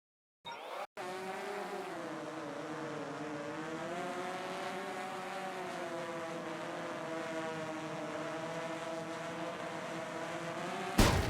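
DJI FPV drone's motors and propellers whining steadily, the pitch drifting up and down with the throttle. A brief, loud rush of noise comes near the end.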